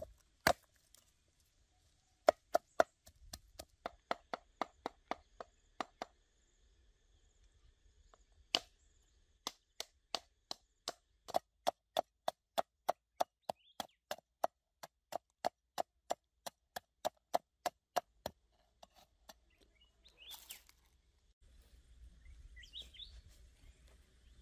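Knife chopping on a wooden cutting board: sharp, even strokes about two to three a second, in a short run, a pause, then a longer steady run that stops a few seconds before the end.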